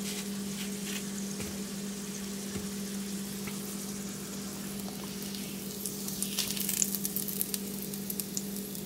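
Thick-cut bacon sizzling in its rendered grease in a cast-iron skillet, with a flurry of sharper pops and crackles about six to seven seconds in. A steady low hum runs underneath.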